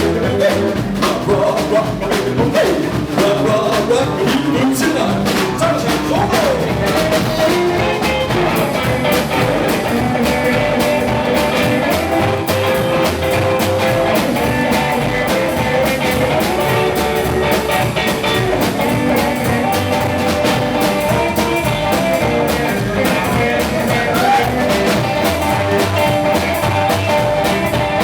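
Live rock and roll band playing: electric guitar, drum kit and singing over a steady dance beat.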